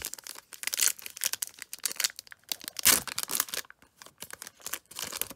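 Foil wrapper of a Panini Prizm trading-card pack being torn open and crinkled by hand: a run of crackling rips, loudest about three seconds in.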